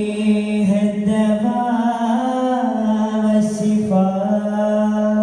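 A male voice singing a long, held, ornamented line of an Arabic devotional song in arabana muttu style, the pitch sliding and wavering in the middle. A few soft aravana frame-drum strokes sound under it.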